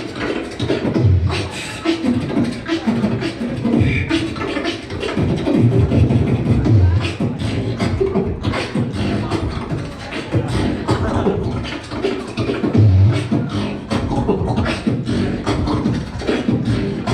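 Beatboxing: one performer's mouth-made drum pattern of deep bass kicks with sharp clicks and snares, in a fast, unbroken rhythm.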